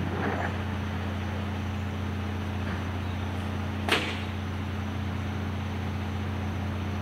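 Battle Motors LET2 garbage truck with a McNeilus rear-loader body running steadily at a standstill, a constant low hum. A short scrape comes just after the start, and a single sharp bang sounds about four seconds in.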